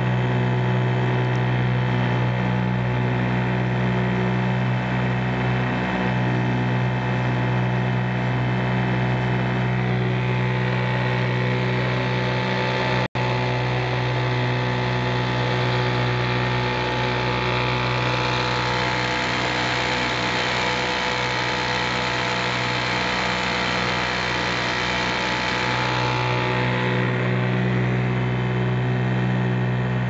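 British Seagull Century 100 single-cylinder two-stroke outboard running flat out at wide-open throttle, holding steady at about 3750 rpm under a heavy load. Through the middle the hiss of the churning wake rises over the engine note. There is a split-second break in the sound about halfway through.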